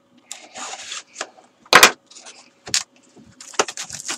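A cardboard trading-card box being handled and slit open with a pocket knife: scraping and rustling, a loud knock about two seconds in, then a quick run of clicks and taps near the end.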